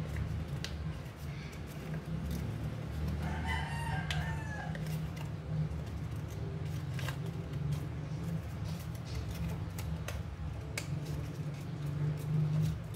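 Origami paper being folded and creased by hand, with scattered light crinkles and clicks over a steady low hum. About three and a half seconds in, a single drawn-out animal call sounds for about a second and a half.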